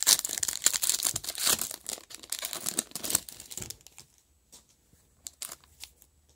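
A hockey card pack's wrapper being torn and crinkled for nearly four seconds, then a few light rustles and flicks as the cards are slid out and handled.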